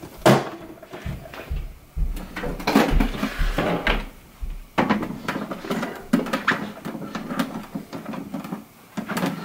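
Handling knocks and clicks from the plastic case of an Apple II Plus as its lid is seated, then a computer monitor lifted and set down on top of it, with low handling bumps in the middle.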